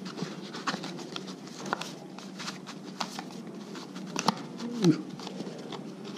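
Hands handling and opening a black cardboard box: scattered taps, clicks and scrapes of cardboard over a steady low hum. About two thirds of the way in, a short falling voice-like sound is the loudest moment.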